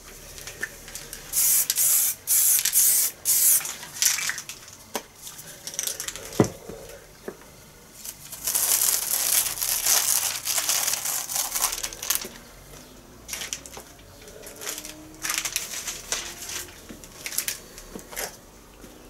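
Aerosol spray-paint can hissing in several short bursts, then paper stencil masks rustling and crinkling as they are peeled off the painted board, with a single sharp click in between.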